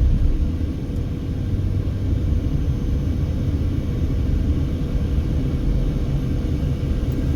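Steady low rumble of a car driving, heard inside the cabin: tyre and engine noise with a faint steady hum.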